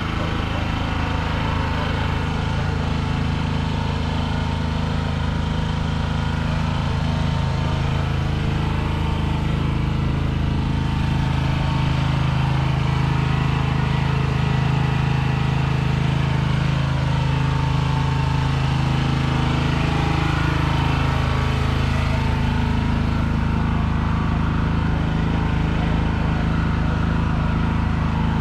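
A large engine idling steadily: a low, even drone.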